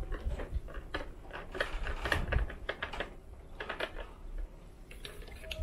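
Quick irregular light clicks and taps, with a few dull low knocks, as runny pie batter is poured from a plastic jug over the filling in a metal baking pan.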